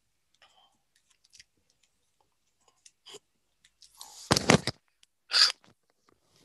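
Handling noises at a desk: a few faint ticks, then a short loud cluster of knocks about four seconds in, and a brief hissy burst about a second later.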